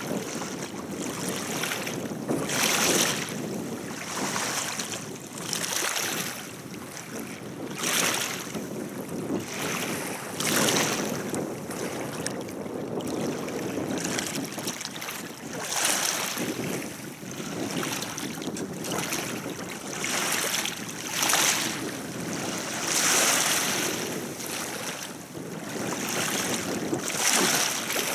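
River waves splashing and wind blowing, the noise swelling and easing every few seconds.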